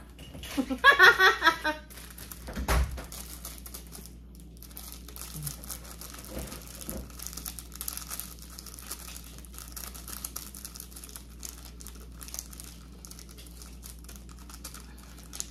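Instant-noodle soup sachets crinkling as they are snipped open with scissors and shaken out over a pot: a steady run of small crackles. Near the start there is a brief vocal sound and a dull thump.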